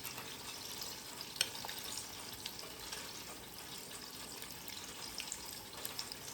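Chicken wings frying in hot oil: a steady sizzle with scattered crackles and pops, one sharper pop about a second and a half in.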